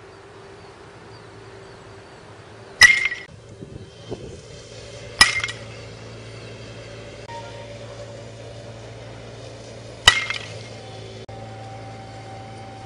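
Metal baseball bat hitting pitched baseballs three times, each contact a sharp ringing ping, with the hits a few seconds apart. A steady low hum runs underneath.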